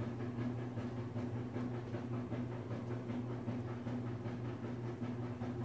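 Steady low hum from an appliance motor running in the room, with faint soft ticking and rustling from a crochet hook and yarn as a treble crochet stitch is worked.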